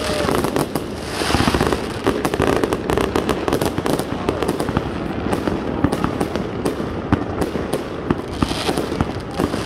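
Fireworks going off in a continuous barrage of many overlapping bangs and crackles.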